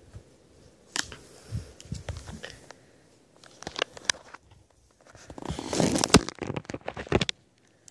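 Plastic packaging crinkling and tearing as an acrylic nail brush is unwrapped, in irregular crackly bursts, densest and loudest about five to seven seconds in.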